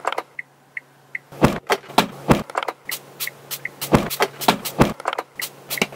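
Hazard-light flasher ticking, worked into a rhythmic beat of sharp clicks and knocks. Three short high ticks come close together, and the group repeats about every two and a half seconds.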